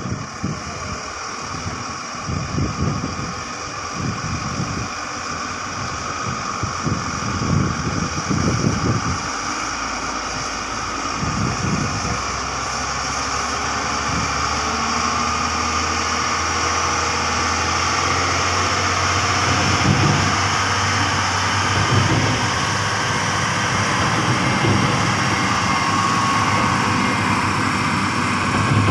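Diesel engines of a mining dump truck and a Hyundai crawler excavator running together, a steady engine hum that grows gradually louder as the truck drives closer.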